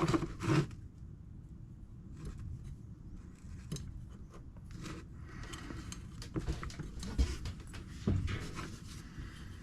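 Faint rustling and scattered light clicks and knocks of small parts being handled while looking for a spare carburetor gasket, over a low steady background hum.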